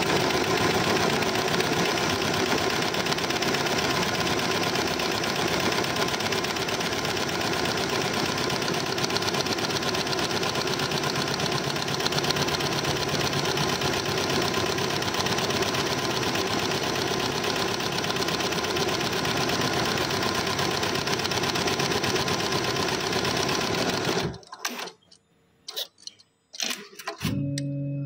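Richpeace computerized embroidery machine running, its needle stitching rapidly and steadily. It stops abruptly about 24 seconds in, followed by a few clicks and a brief low tone near the end.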